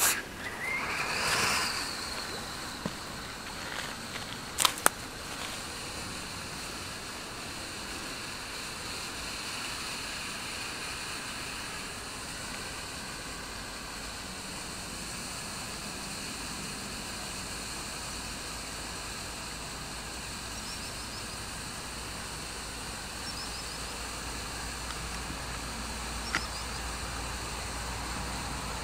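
Red smoke grenade igniting: a whooshing rush of sparks in the first couple of seconds that sweeps up in pitch, a sharp pop about five seconds in, then a steady hiss as it pours out smoke.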